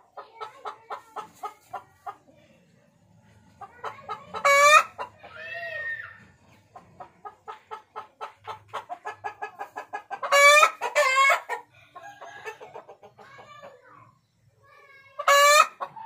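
Flock of chickens clucking in quick runs of pulses. Loud short calls break in about four seconds in, again around ten to eleven seconds, and near the end.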